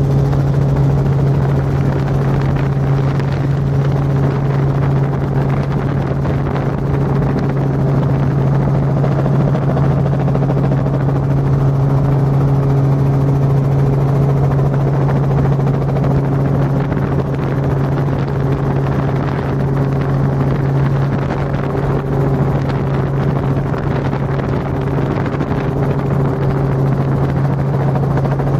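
Robinson R44 helicopter in flight, heard from inside the cabin: a loud, steady drone of engine and rotors that does not change.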